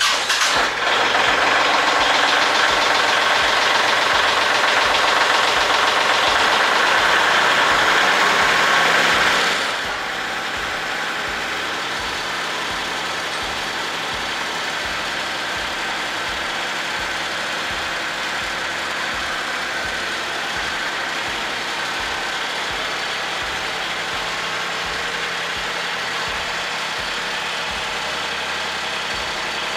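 Kubota L3301 tractor's three-cylinder diesel engine cold-started after sitting a week, running louder for about the first ten seconds, then dropping to a quieter, steady idle.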